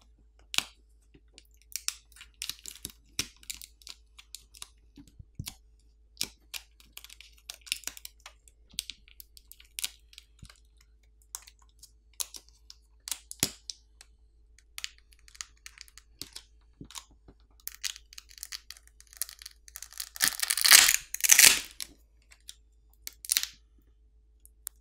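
Adhesive under a smartphone battery crackling and tearing as the battery is pulled up by its pull tab and pried out of the frame, with scattered small clicks and a louder stretch of tearing near the end.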